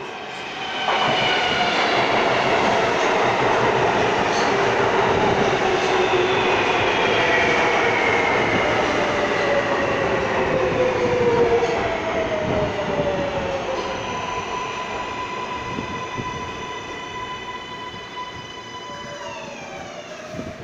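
An R143 subway train pulls into the station and brakes to a stop. Its wheels on the rails get loud about a second in. The traction motors whine, falling slowly in pitch as the train slows, and a quick cluster of falling tones comes just before it stops near the end.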